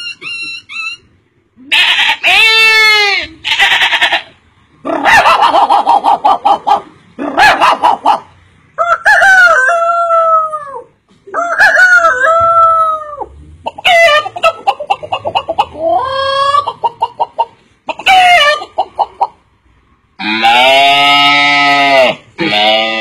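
A man imitating farm animals with his voice, here calls that sound like a chicken. It is a string of about ten separate calls with short pauses between them, several sliding down in pitch, one a rapid pulsing run, and a long held call near the end.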